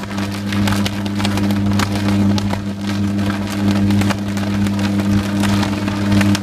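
High-voltage short-circuit arc on a utility pole, buzzing steadily with continuous crackling and snapping.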